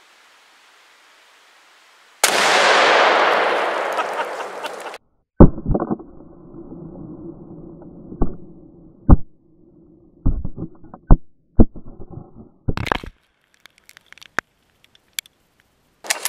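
A rifle shot sets off a Tannerite-packed pumpkin: one loud blast about two seconds in, its rumble dying away over a few seconds before it cuts off sharply. It is followed by a string of sharp knocks and thumps over a low steady hum.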